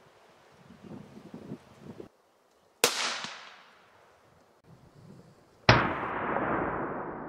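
Two rifle shots about three seconds apart, each a sharp crack followed by a long echoing fade. The second, near the end, is the louder and is still ringing out.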